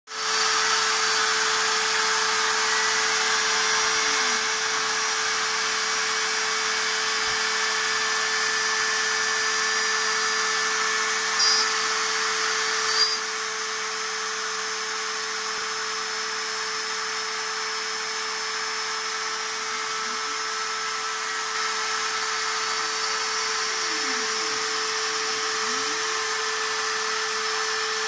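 Stepcraft 840 CNC router engraving a wooden board: the router spindle runs with a steady whine and a cutting hiss. Occasional rising and falling tones sound as the head moves from one stroke to the next.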